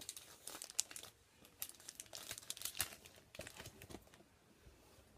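Foil trading-card packs being handled and torn open, with irregular crinkling and rustling of the wrappers.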